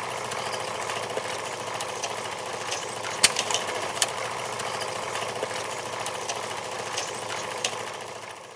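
Film projector running: a steady mechanical clatter with scattered clicks that fades out near the end.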